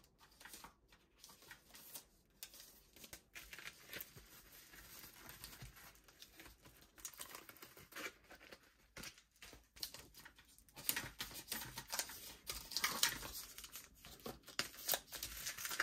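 Faint crinkling and rustling of metallic foil bubble mailers and a frosted plastic pouch being handled, in small irregular crackles that grow busier and louder over the last few seconds.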